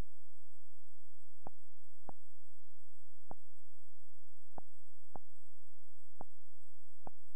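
Computer mouse clicking: seven sharp single clicks, spaced about half a second to a second apart, over a faint low hum.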